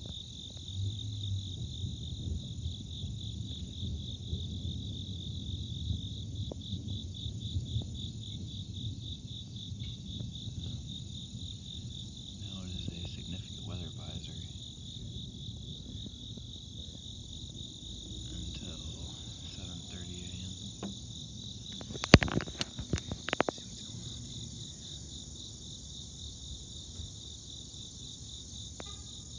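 A steady, rapidly pulsing chorus of crickets, with a low rumble underneath that is strongest in the first third. A short cluster of sharp clicks or knocks comes about two-thirds of the way through and is the loudest sound.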